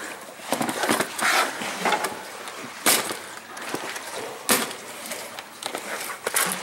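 Hard plastic tackle box being handled on gravelly ground: scraping and rustling, then sharp snaps of its latches flipping open, once about three seconds in and again about a second and a half later, and a few more clicks near the end as the lid is lifted.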